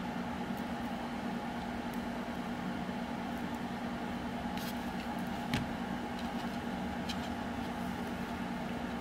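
A steady low mechanical hum, with a few faint metal clicks as pliers squeeze a metal piece onto the rig's steel wires, and one short knock about five and a half seconds in.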